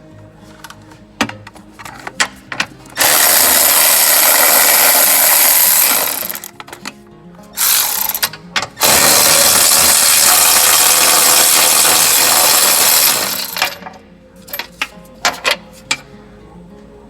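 A power tool runs in two long bursts of about three and four and a half seconds, with sharp metallic clicks and clanks of hand tools around them.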